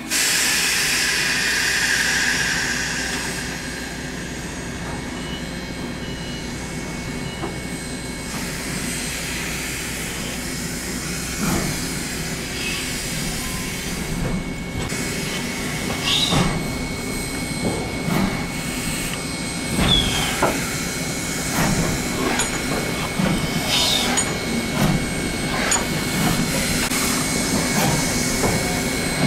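Steam locomotives moving slowly along a shop track: 2-8-2 Mikado No. 30 shoving Texas and Pacific 2-10-4 No. 610. Steam hisses loudly for the first few seconds, then a steady rumble of wheels on rail with occasional clanks and brief squeals.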